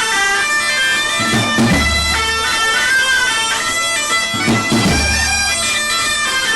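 Background music: a sustained melody of held notes over deep bass hits every three seconds or so.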